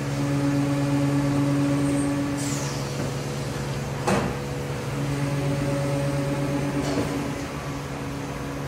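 2012 Haas VF-4SS CNC vertical mill running a program with flood coolant spraying inside the enclosure: a steady machine hum over a hiss. One of its tones drops out about two and a half seconds in and returns about five seconds in. A sharp click comes about four seconds in.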